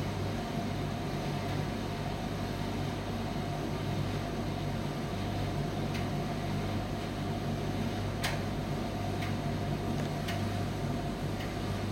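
Primus laundromat tumble dryer running with a steady mechanical hum. A few light clicks come through in the second half, the loudest about two-thirds of the way in.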